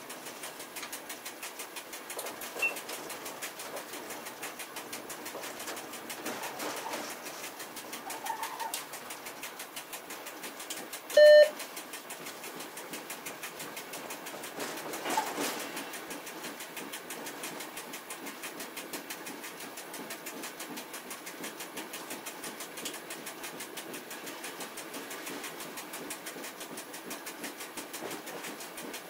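Train running noise heard inside the driving cab of a double-deck passenger driving trailer, with a steady fast ticking. About eleven seconds in, a short, loud electronic beep from the cab sounds once. Brief faint squeals come around eight and fifteen seconds in.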